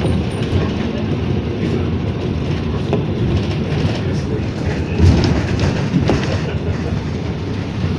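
Inside the cabin of a moving PAZ Vector Next city bus: steady engine and road rumble, with two heavy thumps about five and six seconds in.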